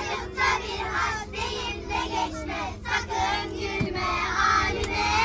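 A group of young children singing together in chorus, a woman leading them, over the steady low hum of the coach they are riding in.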